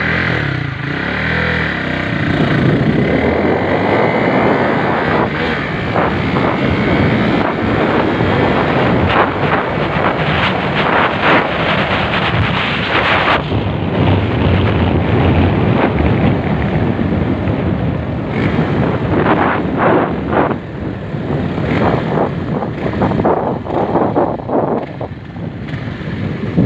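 Honda Sonic 150R's single-cylinder four-stroke engine run hard on a test run, with heavy wind noise on the microphone. The new clutch plates hold without slipping. The engine note eases near the end.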